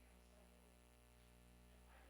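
Near silence: only a faint, steady low electrical hum.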